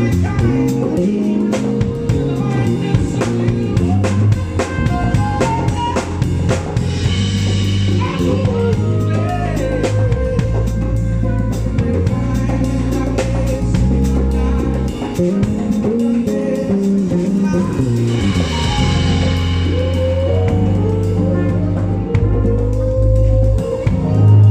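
A live band playing: a drum kit keeping a steady beat with rimshots, under a bass guitar holding low notes and a guitar.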